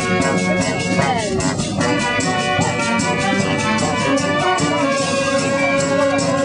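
Live brass band with trombones playing a lively tune over a steady beat, with a note sliding down in pitch about a second in.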